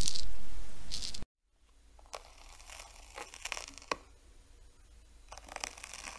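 Snail eating: crackling and rasping as it scrapes at its food with its radula. A louder passage cuts off abruptly about a second in, then quieter crackles follow with a few sharper clicks.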